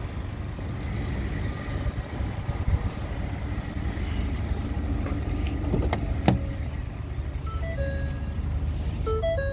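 Ford F-150's door-open warning chime: a string of short electronic tones at different pitches near the end, after a sharp click as the driver's door is opened. A low rumble runs underneath.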